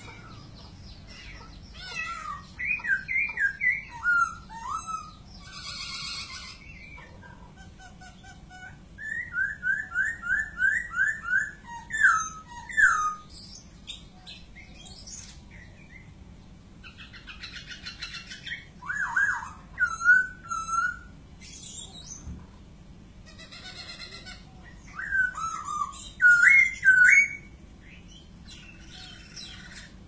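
Caged laughingthrush (poksay) singing: loud bouts of rapid, repeated whistled notes, four bouts with pauses of a few seconds between them.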